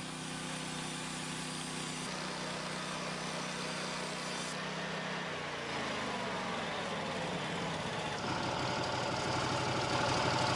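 Portable sawmill's engine running at a steady pitch, then dropping in pitch about five seconds in; from about eight seconds a higher steady whine joins it and it grows a little louder.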